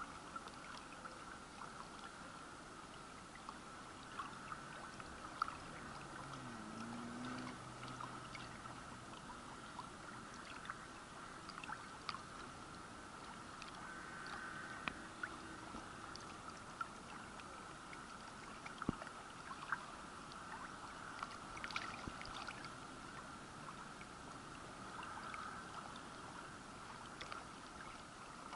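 Shallow water rippling and lapping against a camera held at the surface, with small trickles and scattered light ticks of water.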